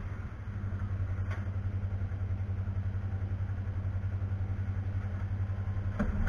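A motor starts and runs steadily with a deep, even hum and a fast, regular pulse, like an engine idling. There is a short click about six seconds in.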